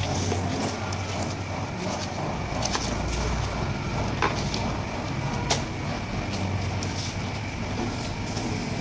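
Steady low hum and background noise, with a few short sharp knocks from a long knife striking the cutting board as a tuna loin is sliced, the clearest about four seconds and five and a half seconds in.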